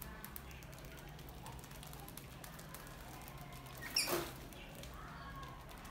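Rodents moving and scrabbling inside a metal box trap with a wire-mesh lid, faint scattered scratches and taps. About four seconds in there is one brief, louder sharp sound as a rodent leaps up against the side of the box and lid.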